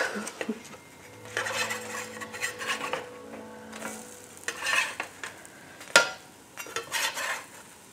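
A metal spatula scraping and sliding under pancakes on a nonstick electric griddle as they are flipped, with a sharp clack about six seconds in, over light sizzling of the cooking batter.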